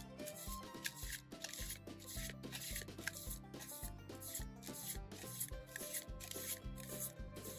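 Trading cards rubbing and sliding against each other as they are flipped one after another off a handheld stack, over background music with a steady beat.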